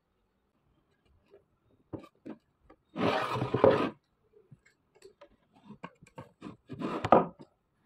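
A white plastic knob being screwed onto a particleboard drawer front by hand: a few light clicks, about a second of rasping rub, then a run of small ticks and scrapes.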